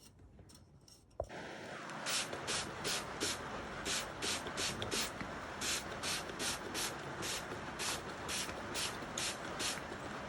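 A sharp click about a second in, then a steady spray of water or cleaner on the heat pump's fan, with a rhythmic hiss pulsing about two to three times a second.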